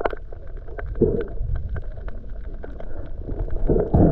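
Muffled underwater ambience picked up by a submerged camera: a low rumble with many scattered sharp clicks, and gurgling swells about a second in and again near the end.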